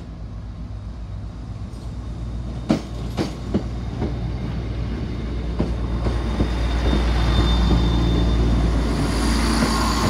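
Class 170 Turbostar diesel multiple unit pulling away over a level crossing, its diesel engines running under power and growing steadily louder. A few sharp clacks of the wheels over rail joints come about three to six seconds in.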